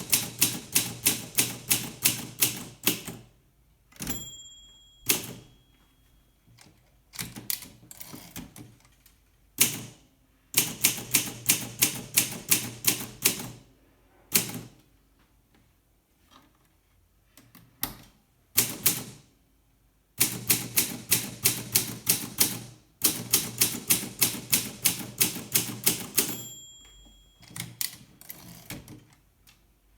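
Olympia SM2 de Luxe portable manual typewriter being typed on: runs of quick keystrokes, about four to five a second, broken by pauses. The margin bell rings twice, about 4 seconds in and near the end.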